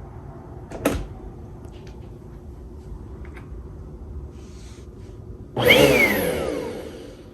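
Eureka AirSpeed compact upright bagless vacuum cleaner with a steady low hum, a single knock about a second in, and near the end a loud burst whose pitch falls away as it fades.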